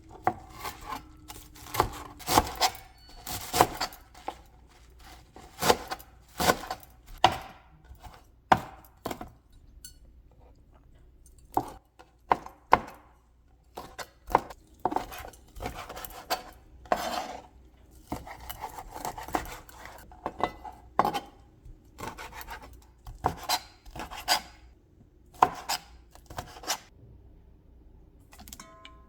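Kitchen knife chopping food on a cutting board in irregular runs of knocks, with scraping sounds and quiet pauses in between.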